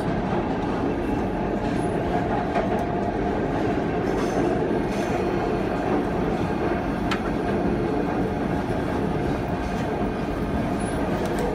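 Sydney Trains Tangara electric suburban train running, heard from inside at the gangway between carriages: a steady rumble of wheels and car body with a few faint clicks.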